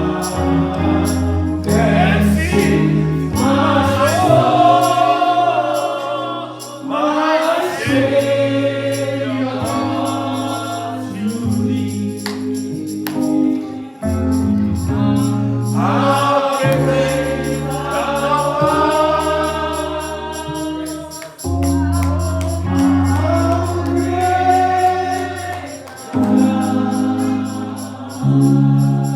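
Gospel music with singing voices over a bass line and a steady ticking beat.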